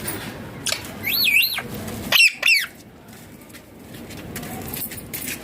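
Indian ringneck parakeet calling: a warbling whistle that swings up and down about a second in, then two sharp, falling squawks just after two seconds.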